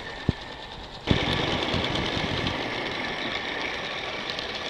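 Small live-steam garden-railway locomotive running past close by: a steady hiss of steam exhaust with the mechanical running noise of its motion and wheels on the track, starting suddenly about a second in after a single sharp click.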